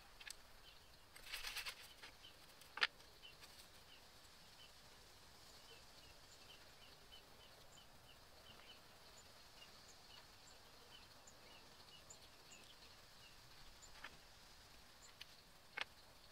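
Near silence with quiet handling sounds: a brief rustle of pine needles, then a sharp click about three seconds in and a few softer clicks near the end. Faint high chirps repeat a couple of times a second through the middle.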